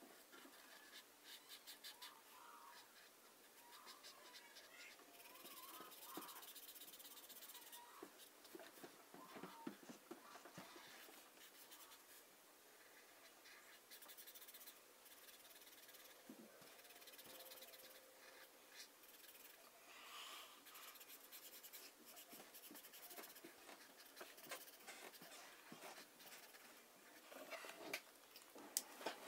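Felt-tip marker rubbing faintly on sketchbook paper in many short back-and-forth strokes as a large dark area is filled in, with brief squeaks of the nib now and then.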